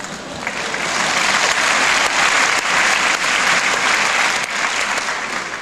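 Audience applauding in a concert hall: the clapping swells over the first second, holds, then fades away near the end.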